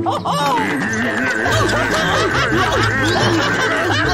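A man's cartoon belly laugh, long and gloating, over background music. A low rumble comes in about a second and a half in.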